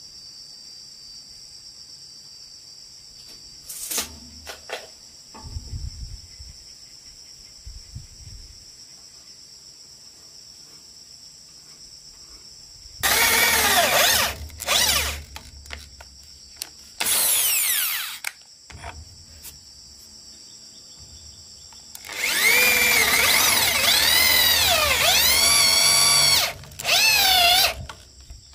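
Corded electric drill boring holes into a wooden plank in several bursts, the longest near the end, its motor pitch wavering up and down as the bit bites into the wood. Before the drilling, a steady high buzz of insects with a few light knocks.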